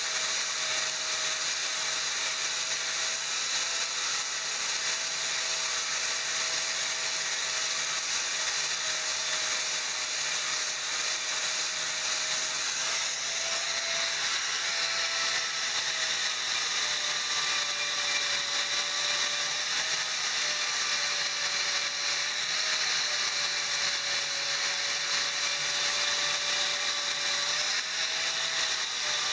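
Electric angle grinder with an abrasive disc running continuously and grinding a weld bead down on thin steel square tubing: a steady high whine over the hiss of the disc on the metal. About halfway through the whine rises slightly as the disc comes off the work, then drops a little as it bites again.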